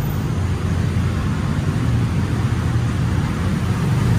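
Motorcycle and scooter engines running at low speed in a traffic jam inside a narrow concrete underpass: a steady low rumble.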